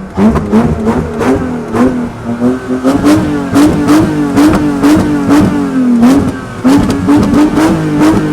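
BMW E36's M52B28 straight-six engine, fitted with a new exhaust, revved hard and held high with rapid blips of the throttle up and down, the engine warmed up.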